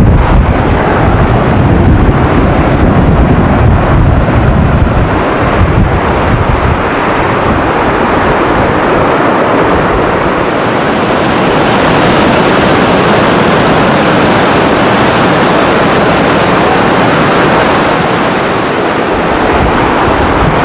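Krimml Waterfalls' falling water, a loud, steady, thundering rush. A heavy low rumble underlies it for the first six seconds or so. About ten seconds in the rush turns brighter and hissier.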